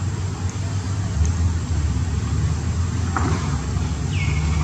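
Steady low outdoor rumble, with a short, high falling chirp about four seconds in.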